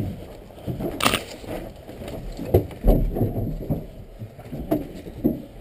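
Irregular thuds and knocks of someone scrambling into a wooden bunker: footsteps, and gear bumping against the wooden walls and floor, with a short sharp rustle about a second in and a deep thump near the middle.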